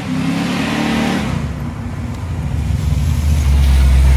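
Straight-piped LS V8 in a Holden VS Commodore running as the car drives up, its engine pitch rising and then dropping. From about three and a half seconds in it idles loudly and low, close by.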